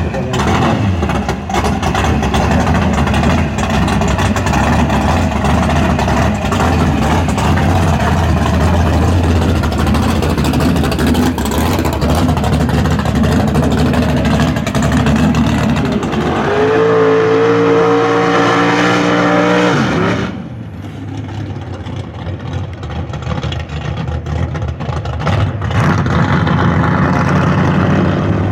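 Muscle car V8 engine running loud with revving, holding a steady high rev for a few seconds past the middle, then dropping back to a quieter idle before picking up again near the end.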